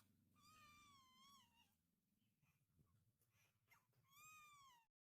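A cat meowing faintly twice: one long wavering meow, then a shorter one near the end.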